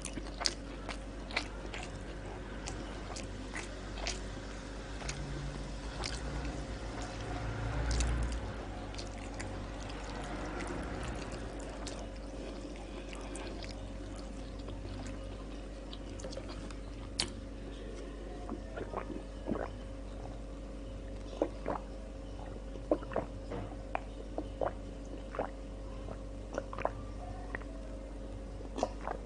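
Close-miked mouth sounds of chewing breaded chicken and rice: scattered wet smacks and clicks, with a louder stretch of chewing about eight seconds in. A steady low electrical hum runs underneath.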